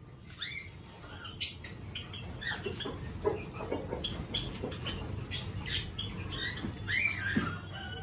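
Aviary of small finches and budgies chirping: many short overlapping calls, busier from about two seconds in, with a few calls that rise and fall in pitch.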